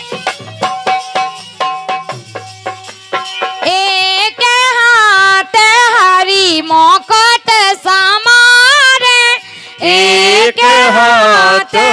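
Bundeli Diwari folk music: a steady percussion beat, joined about four seconds in by a loud, high, wavering melodic line that runs in short broken phrases over the beat.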